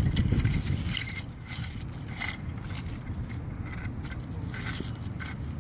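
Scraping and crunching of a toy skid steer's bucket digging into dirt and small rocks, in short irregular strokes over a steady low rumble.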